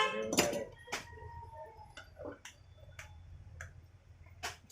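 Light metallic clicks and clinks, roughly one every half second, of metal parts and tools being handled during the repair of an electric chipping hammer.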